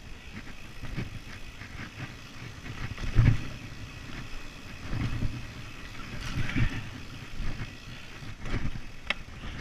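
Mountain bike ridden fast over a dirt singletrack: a rumbling ride noise with rattling clicks, and heavy thumps as the bike goes over bumps, the loudest about three seconds in.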